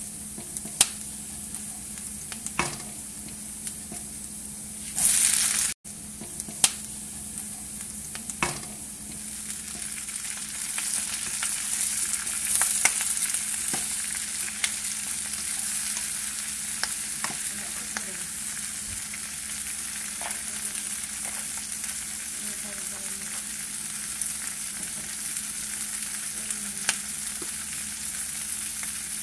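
Butter, garlic, ginger and onions sizzling in a frying pan, with a wooden spatula knocking against the pan as it stirs. A loud burst of noise about five seconds in cuts off abruptly; after it, raw shell-on shrimp sizzle in the pan, the sizzle growing louder after about ten seconds, with occasional spatula taps.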